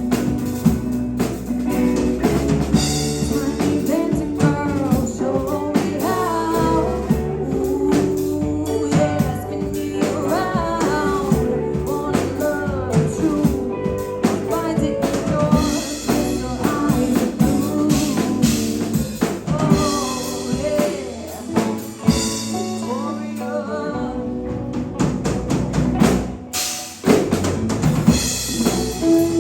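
Live rock band playing with a woman singing lead over electric guitars, bass and drum kit; the band drops back briefly near the end, then comes in again at full strength.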